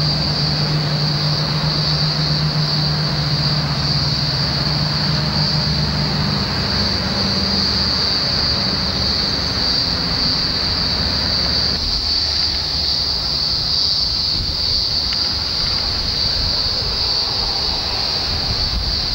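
Steady high-pitched drone of a cicada chorus, with wind rumbling on the microphone. A low steady hum underneath stops about six seconds in.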